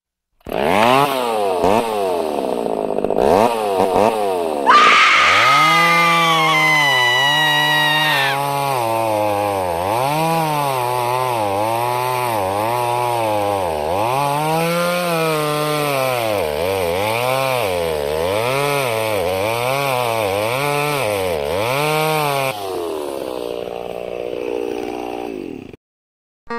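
A small engine revved up and down over and over, about once a second, with a higher whine on top for a few seconds early in the run; it fades and cuts off shortly before the end.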